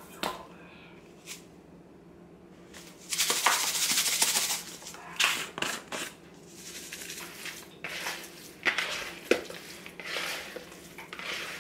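Seasoning shaker shaken over a plastic mixing bowl of chicken, a dense rattling hiss for about a second and a half, followed by scattered clicks and taps of shaker bottles being handled and set down, and hands working the chicken in the bowl near the end.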